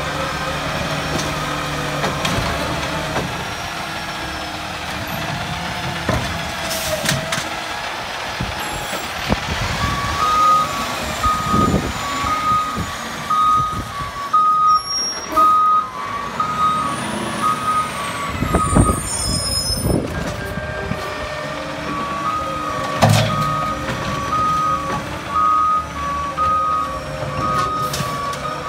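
Autocar ACX garbage truck with a New Way Roto PAC side-loader body: the engine runs and the arm hydraulics whine as a cart is emptied. About a third of the way in, the backup alarm starts beeping steadily in a two-tone pattern as the truck reverses. The alarm stops briefly past the middle and then resumes, with a few sharp air hisses typical of air brakes.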